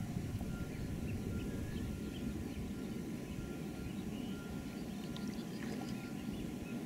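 Outdoor ambience: a steady low rumble with faint, scattered bird chirps above it.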